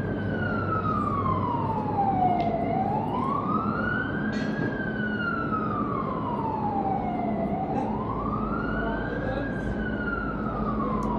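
An emergency vehicle's siren wailing, its pitch slowly falling and rising again about every five seconds, over steady street traffic noise.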